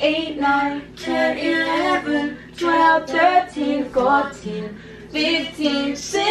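A girl singing unaccompanied in short phrases of held notes.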